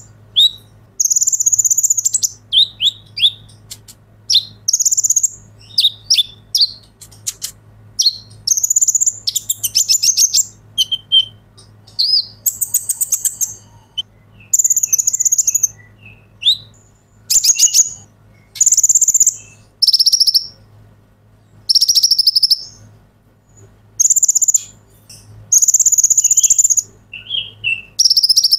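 Male Van Hasselt's sunbird (kolibri ninja) singing in full song: repeated high, buzzy trilled phrases about a second long with short gaps between them, mixed with lower, sharp chirps.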